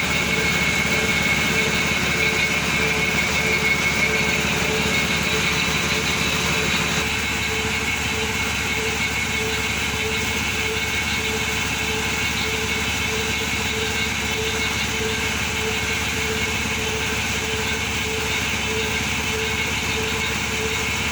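Simple well-drilling rig running, driven by a 5.5 hp three-phase electric gearmotor fed from a generator. It makes a steady machine drone with a faint tone that pulses about twice a second. A lower part of the hum drops away about seven seconds in.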